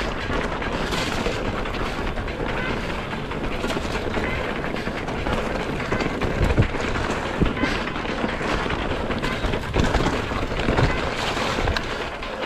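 Mountain bike ridden fast down a rough trail: a steady rush of wind and tyre noise, with the bike rattling and knocking sharply over bumps, harder hits a few times.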